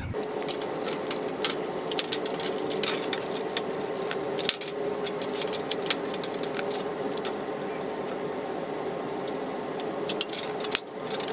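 Rapid metallic clicks and rattles of a hex key and pliers working a bolt loose on a slotted zinc-plated angle-iron frame, with a cluster of clicks near the end, over a steady hum.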